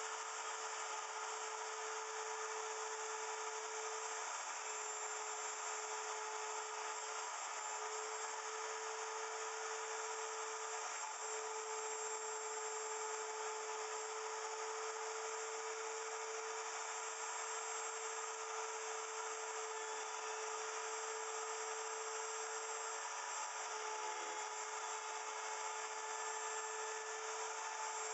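Wood router in a router milling machine running at speed with a steady high whine, its bit cutting into a small wooden block. This is the final cut on the last side, meant to free the inner cube. The pitch dips briefly a few times.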